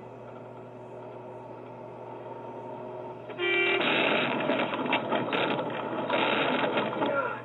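Tractor-trailer cab interior: the truck runs with a steady drone, then a brief horn blast about three and a half seconds in, followed by loud rattling, banging and rumbling as the truck swerves off the road into the ditch. The sound cuts off suddenly at the end.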